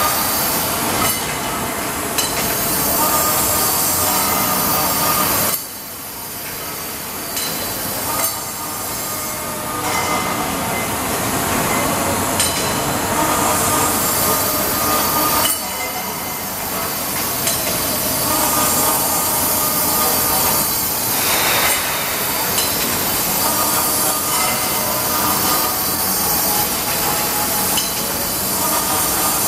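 Continuous machine noise from an RSA RASACUT tube sawing, deburring and cleaning line running, with steady tones over a dense clatter. The sound shifts abruptly about five and a half seconds in and again at about fifteen and a half seconds.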